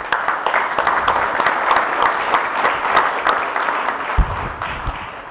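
Audience applauding, dense clapping that starts at once and fades away near the end, with a few low thuds about four seconds in.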